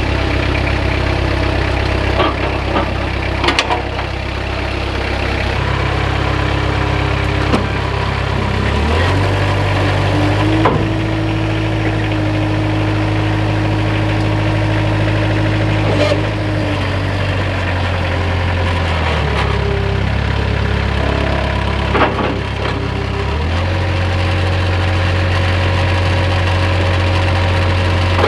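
Engine of a Moffett truck-mounted forklift running steadily, its speed stepping up and holding for several seconds, once about a third of the way in and again near the end. A few sharp metal clanks sound as the forklift is unhitched and taken off the back of the flatbed.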